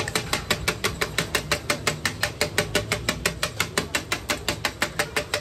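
Metal spatulas striking a large iron tawa griddle in a fast, steady rhythm of about seven sharp clacks a second, chopping and turning frying liver, over a low sizzle.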